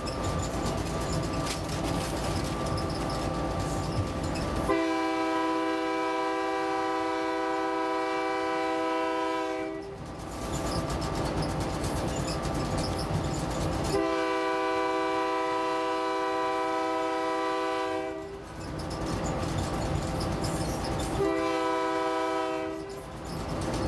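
EMD GP9 diesel locomotive's horn, heard from inside the cab, sounding a chord in two long blasts and then a short one over the steady run of the engine and wheels on the rails. Long, long, short is the opening of the grade-crossing signal, blown on the approach to a road crossing.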